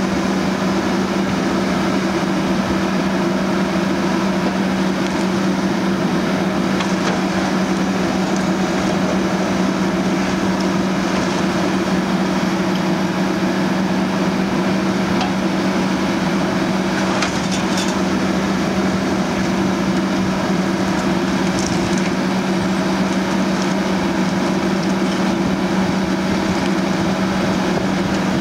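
Volvo EC 480E HR demolition excavator's diesel engine running with a steady hum under hydraulic load, while its Demarec MQP-60 multi-processor crushes concrete rubble with occasional cracking.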